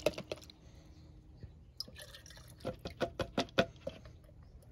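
Liquid poured from a plastic measuring cup into a plastic gas can, trickling and dripping. A run of small, quick drips and splashes falls from just under two seconds in until nearly four.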